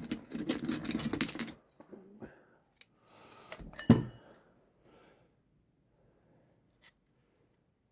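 Loose metal hand tools clinking and rattling as they are picked through, with one sharp, ringing metal-on-metal clink about four seconds in.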